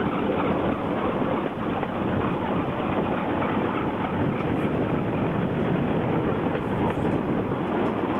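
Bamboo railway cart running along the rail track: a steady rolling rattle of its wheels on the rails, mixed with its small lawnmower-type engine.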